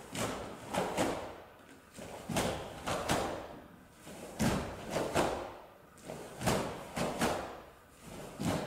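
Karateka's stepping triple punches (jōdan-chūdan sanbon-tsuki): four sets of three sharp snaps of the gi, one set about every two seconds, each with the step on a wooden floor.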